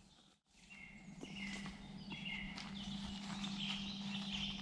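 Wild birds chirping and twittering over a steady low hum, after a brief drop-out in the sound near the start.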